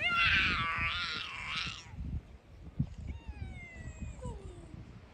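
A cat meowing: a long, wavering yowl for the first couple of seconds, then a couple of shorter calls that fall in pitch.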